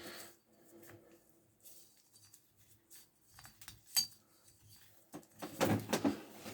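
Small metal tools and parts clinking and being handled on a workbench: a sharp metallic click about four seconds in, then a louder run of knocks and rattling near the end.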